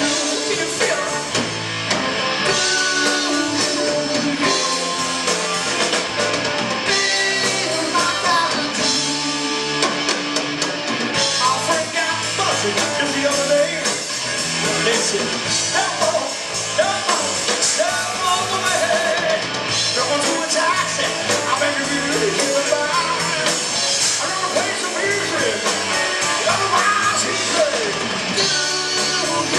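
A live rock band playing loudly and without a break: electric guitars, a keyboard and a drum kit.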